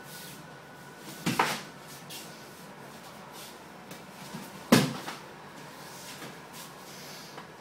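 Kali sticks striking during sparring, making sharp wooden knocks. A quick double knock comes about a second in, and a single loud knock with a lighter one just after comes near the five-second mark.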